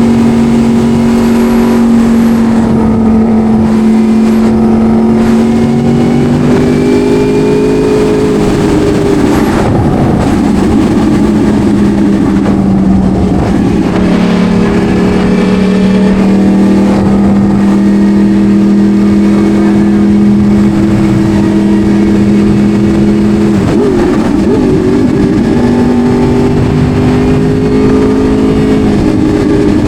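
Yamaha R1 sport bike's inline-four engine running at a steady cruise, over wind rush. The engine note eases down from about 8 s to a lower steady pitch by about 14 s, then steps back up about 24 s in.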